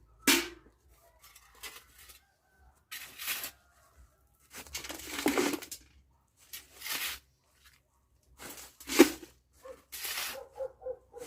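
A run of separate scraping and crashing noises from demolition work, about six short bursts with pauses between them, the loudest near the end.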